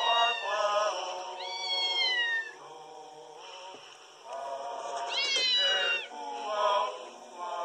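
A deaf cat meowing excitedly at her owner's return: several long, drawn-out meows that slide down in pitch, with a quieter gap in the middle. Men's group hymn singing is layered faintly underneath.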